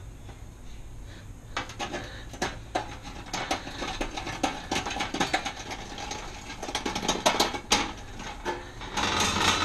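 Hand deburring tool scraping the rim of a freshly drilled hole in a sheet-metal electrical-panel cover: a run of short, irregular metal scrapes and clicks that starts about a second and a half in and is busiest near the end, leaving the hole's edge smooth.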